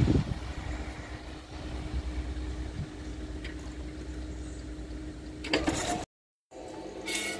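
Erixx diesel railcar pulling away from the level crossing: a low rumble of engine and wheels that slowly fades, with a steady hum under it. Shortly before the end there are a few knocks, and the sound cuts out suddenly.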